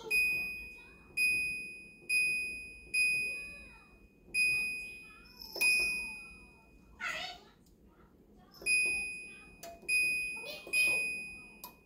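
Uvi Cube UV sanitizer's control panel beeping as its buttons are pressed: about eleven short, high electronic beeps, each fading quickly, roughly a second apart with a pause between about six and eight seconds in. A brief rough sound comes about seven seconds in, during that pause.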